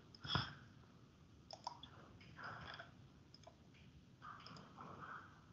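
Faint computer mouse clicks: one sharper click just after the start, then a few lighter, spaced-out clicks, with soft faint rustling between them.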